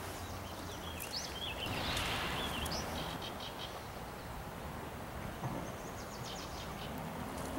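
Riverside ambience: a steady low rush of moving water and air, with small birds chirping. There are several short chirps about a second in, and quick ticking trills later on.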